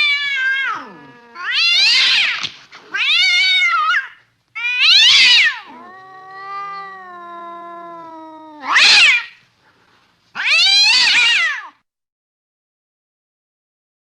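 A domestic cat meowing loudly, about six separate calls that bend up and down in pitch. In the middle comes a quieter, lower, drawn-out moan. The calls stop about two seconds before the end.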